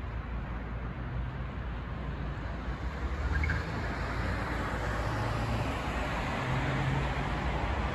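Road traffic on a multi-lane city road: a steady rush of tyres with a low engine hum, swelling slightly about three seconds in.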